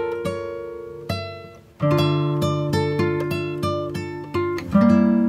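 Background music on acoustic guitar, single plucked notes and chords that fade out one after another, with a brief pause just under two seconds in before the playing picks up again.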